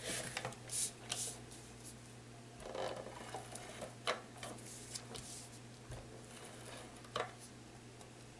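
Soft rustling and tapping of cardstock being slid and pressed flat by hand, with a few short sharp clicks, the clearest about four and seven seconds in, over a faint steady hum.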